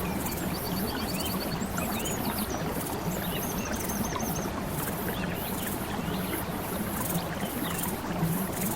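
Steady running water, like a stream, with high chirps and two quick trills over it.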